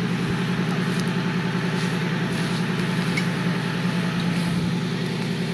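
Off-road prototype buggy's engine idling steadily while the buggy sits nose-down in a mud pit.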